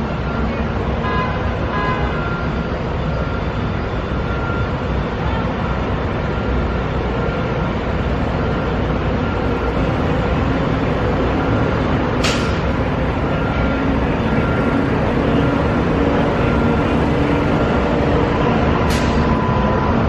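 A resort parking tram drives past, with a steady engine and road-noise drone that grows slightly louder in the second half. Two brief, high sounds falling in pitch come about twelve seconds in and near the end.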